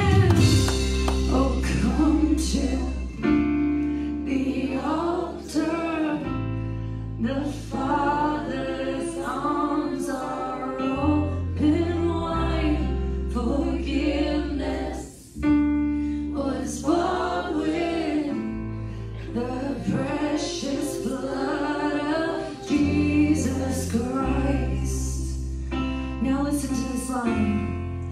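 Live worship band playing a contemporary gospel song: several voices singing together over electric guitars, bass and drums. The bass holds long notes that change every two or three seconds, and the music dips briefly about halfway through.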